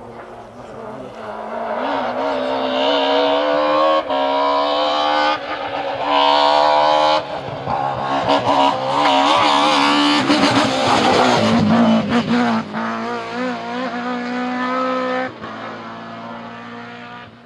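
BMW M3 E30 rally car's four-cylinder engine revving hard and climbing through the gears, the pitch rising between quick shifts. It grows loud over the first few seconds and drops away a couple of seconds before the end.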